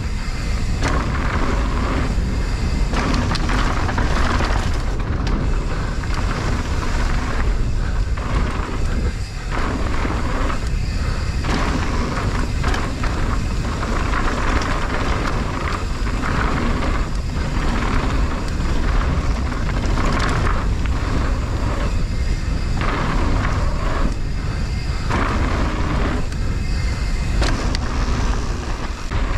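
Wind rushing over the microphone of a mountain bike ride, with the bike's tyres and frame rattling over a dirt trail. It swells and dips irregularly and has a heavy low rumble.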